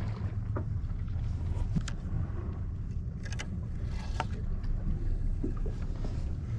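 A boat's motor idling with a steady low hum, with a few faint short clicks over it.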